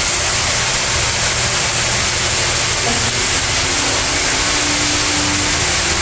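Spa experience shower running: water pouring from an overhead rain head onto a tiled floor, a steady even hiss.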